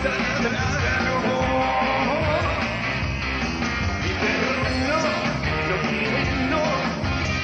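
Rock band playing a rock and roll song live.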